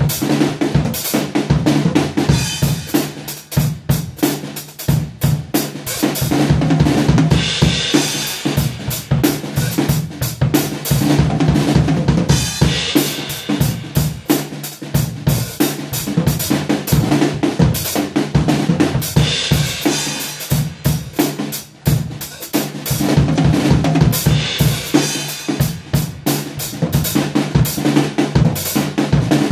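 Acoustic drum kit played continuously by hand: kick, snare and toms struck in a busy pattern under cymbal crashes. The player works at a triplet fill, coming back round to it with a burst of cymbals every five or six seconds.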